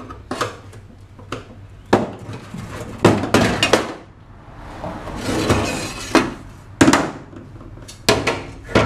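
Hammer and punch knocking rivets out of an aluminum jon boat's transom: sharp metallic clanks at irregular intervals, several in quick succession around three seconds in. A longer scraping rattle of loose aluminum comes about five seconds in.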